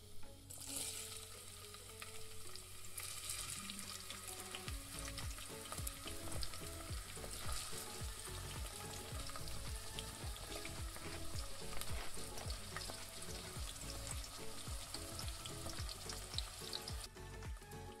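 Chopped vegetables sizzling and crackling in hot oil in a miniature metal frying pan, stirred with a tiny utensil. The sizzle starts about half a second in, and the crackling picks up a few seconds later.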